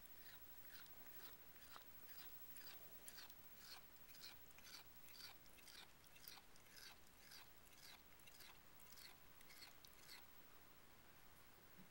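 A cat making a faint sandpaper noise: a steady run of short, dry rasping scrapes, about two a second.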